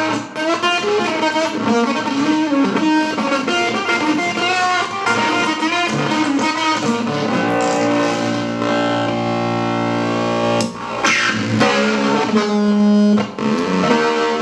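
Electric guitar played through a Barahunda fuzz pedal: distorted single notes bent up and down, then a chord held for several seconds. A sharp break about ten and a half seconds in is followed by sliding, bending notes.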